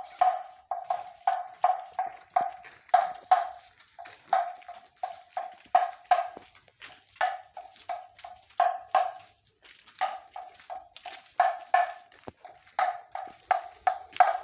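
A bamboo kentongan slit drum struck in a steady patrol rhythm, about three hollow knocks a second on one ringing note. It breaks off briefly a few times.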